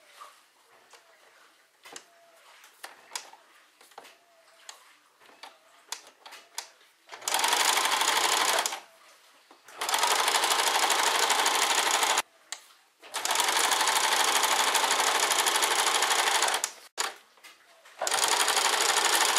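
Home electric sewing machine stitching in four runs of one to four seconds each, stopping briefly between them. The first several seconds hold only faint scattered clicks before the machine starts.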